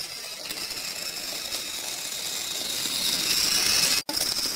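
Battery-powered toy Thomas the Tank Engine running along plastic track, its small electric motor and gears whirring steadily with a high whine. The sound grows a little louder and drops out for an instant near the end.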